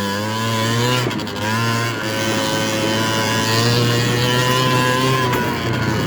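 70cc big-bore two-stroke scooter engine under throttle, pulling uphill: revs climb, dip briefly about a second in, then hold steady at a higher pitch.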